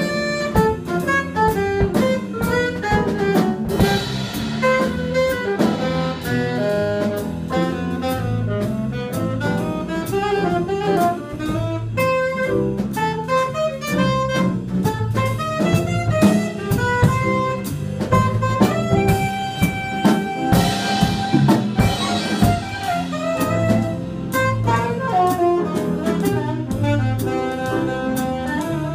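Live small-group jazz: a saxophone playing the melody over drum kit and piano, with a steady swing beat and cymbal crashes about four seconds in and again about two-thirds of the way through.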